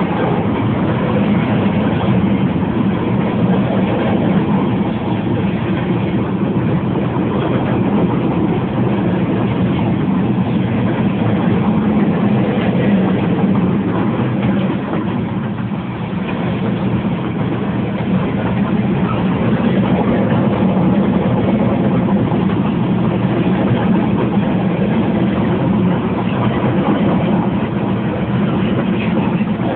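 Steady road and engine rumble heard from inside a car driving at speed beside a rolling freight train of boxcars, with a brief dip in level about halfway through.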